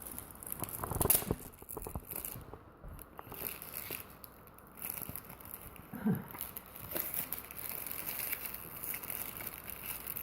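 Gift wrapping paper crinkling and tearing in irregular bursts as a present is unwrapped by hand.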